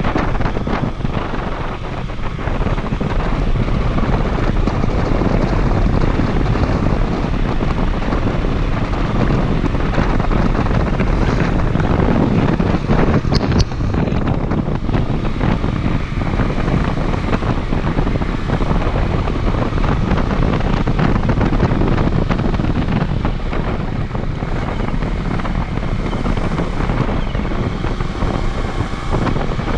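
Steady wind rush buffeting the camera microphone on a moving Honda CD125 twin motorcycle, with the bike's engine running underneath.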